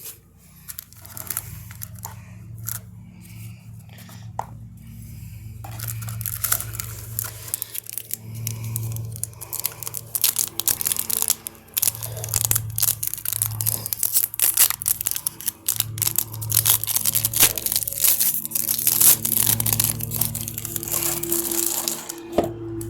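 Foil wrappers of Upper Deck MVP hockey card packs being torn open and crinkled: a dense run of crackles that grows busier about six seconds in.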